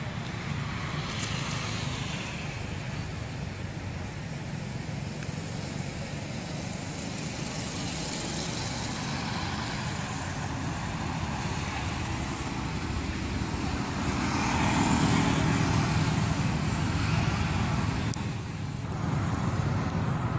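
Steady outdoor background noise with a low rumble, growing louder about three quarters of the way through.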